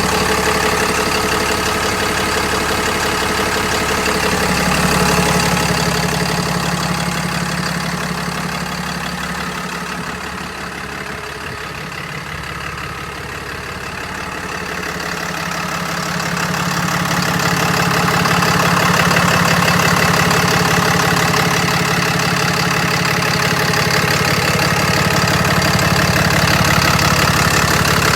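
Diesel engine of a 2012 Peterbilt 330 truck idling steadily, growing fainter about ten seconds in and coming back up a few seconds later.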